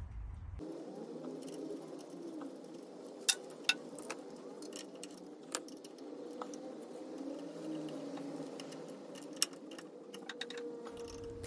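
Metal engine parts being handled and fitted by hand: a bracket and fittings clinking against the engine casing, with several sharp metallic clicks over a low steady background.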